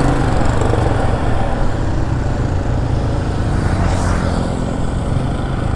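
Motorcycle engine running steadily, with road and traffic noise around it. A brief hiss swells about four seconds in.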